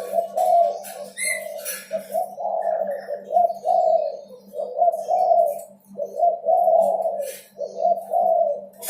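Sunda collared dove (derkuku) cooing steadily in a long run of low, rolling coo phrases, one after another with short gaps. A steady low hum and some sharp ticks sit underneath.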